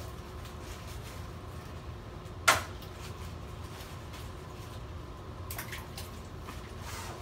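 Water moving and dripping in a tub of ice water as a person settles into it, with one sharp smack about two and a half seconds in and a few faint clicks near the end.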